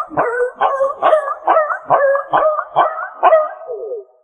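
A dog barking in a quick rhythmic run of short yelping calls, about three a second, each rising and then dropping in pitch, trailing off near the end.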